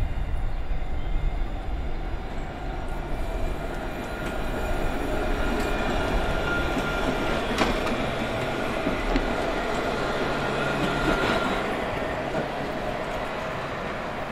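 Alstom Citadis low-floor tram passing close by: steady rolling rumble of steel wheels on rails, with a thin high whine that comes in twice and a single sharp click about halfway through.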